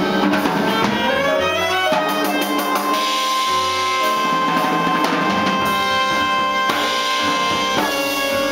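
Live jazz band playing: saxophone, electric keyboard, upright bass and drum kit. One long note is held through the middle while the drums and cymbals keep time.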